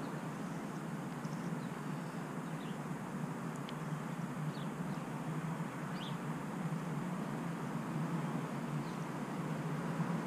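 Outdoor background: a steady low hum with a few faint, short bird chirps scattered through it.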